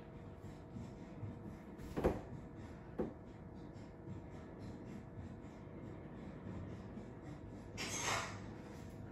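Things being handled and moved around inside an open refrigerator. There are two knocks about two and three seconds in, and a short scraping swish near the end, over a faint steady hum.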